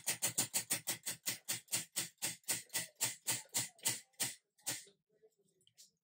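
Spinning prize wheel, its rim pegs clicking past the pointer, fast at first and slowing steadily until the wheel comes to rest about five seconds in.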